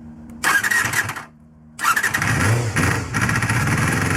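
Honda MC14E 250 cc inline-four motorcycle engine being started: the starter motor whirs, the engine fires briefly about half a second in and falls back to cranking, then catches about two seconds in and keeps running.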